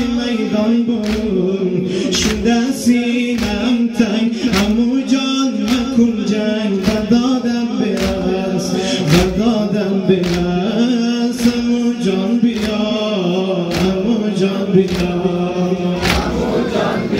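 Male voices chanting a Shia Muharram noha lament in unison, kept in time by the mourners' rhythmic chest-beating (sineh-zani): sharp hand slaps a little under two a second.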